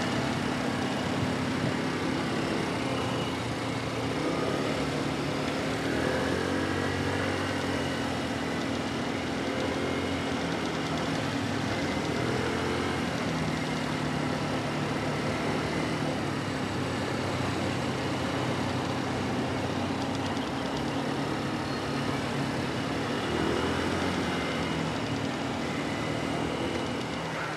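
Motor scooter engine running steadily as it is ridden along a road.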